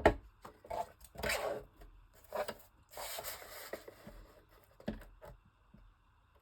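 Paper and craft supplies handled on a tabletop: a sharp knock right at the start, then several short rustles and rubs of paper, dying away near the end.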